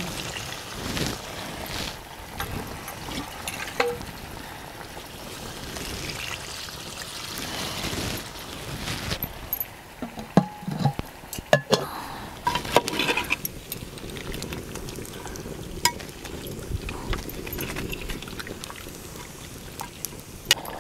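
Water poured from a metal lota into an aluminium pot of country-chicken curry, added so the chicken pieces cook. Sharp metal clinks of the vessels sound around the middle.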